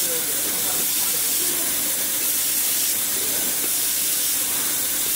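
Steady, high-pitched hiss of an automated fiber laser welding head at work, welding a seam on a pillow plate heat exchanger panel.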